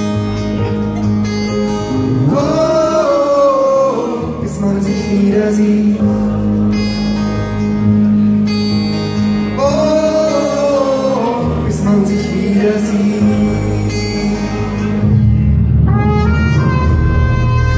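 A live pop-folk band playing an instrumental passage over steady bass notes, with two wavering melody phrases, and a trumpet playing a bright line later in the passage.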